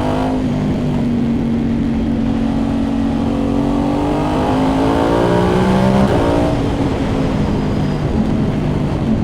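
Ducati Hypermotard V2 V-twin running through an Austin Racing dB-compliant titanium full exhaust system with inconel headers, ridden at steady low revs. From about four seconds in the engine note rises under acceleration, then drops back sharply around six seconds in before settling steady again.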